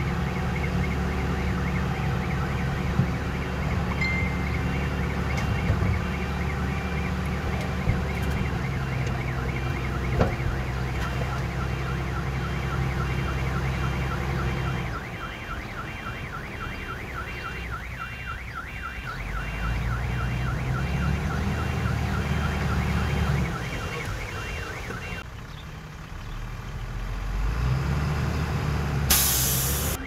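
Diesel engine of heavy earthmoving machinery working under varying load, rising and falling several times, with a rapid, evenly repeating high-pitched chirping or squeaking over it. A brief loud hiss comes near the end.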